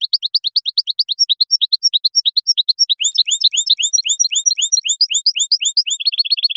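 European goldfinch singing: one long, unbroken phrase of quick, short sliding notes, about eight to ten a second, with higher notes mixed in through the middle and a faster run of notes near the end.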